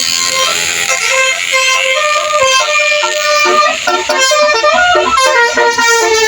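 Bus telolet horn, a multi-tone melody horn, playing a quick tune of short notes stepping from pitch to pitch.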